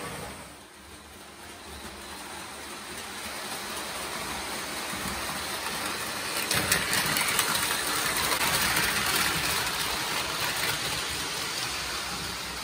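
Lionel O gauge toy electric train running on tinplate track, its motor and wheels making a steady whirring clatter that swells from faint to loud, with a few sharp clicks about halfway through.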